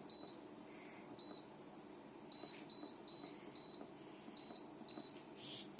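Argo portable dehumidifier's control panel beeping eight times in short, high single-pitched beeps, one per button press, as the timer is stepped up. The unit's fan hums faintly underneath.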